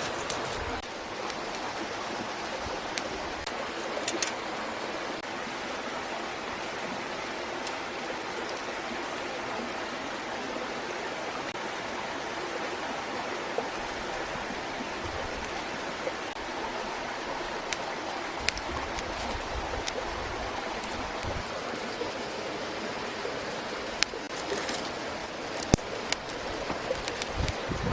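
Steady rushing of flowing water, with a few sharp clicks and taps scattered through, more of them near the end.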